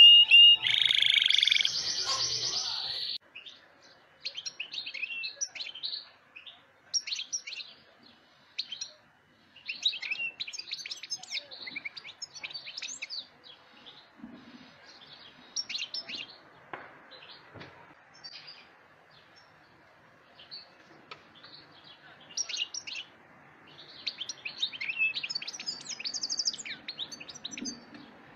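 Black siskin (Bolivian black goldfinch) singing: phrases of quick, high twittering chirps and trills, broken by short pauses. A loud high tone fills the first three seconds, before the birdsong starts.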